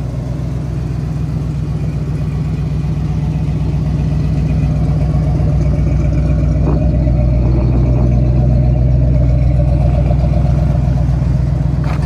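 Car engine running steadily, slowly getting louder.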